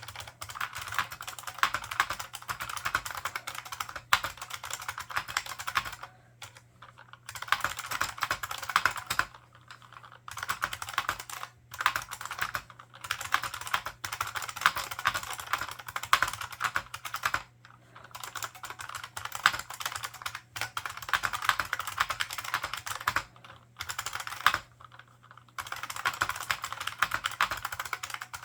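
Fast typing on an IBM 4683 ANPOS point-of-sale keyboard with membrane buckling-spring switches and PBT keycaps. The keys make a dense stream of clacks, broken by several short pauses.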